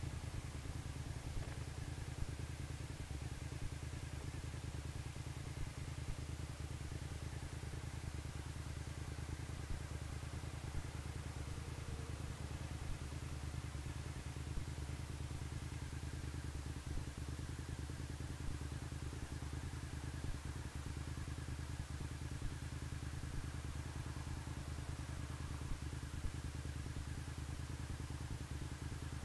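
Suzuki SV1000S's 90-degree V-twin running steadily at low revs, idling at a stop, with a second motorcycle idling alongside.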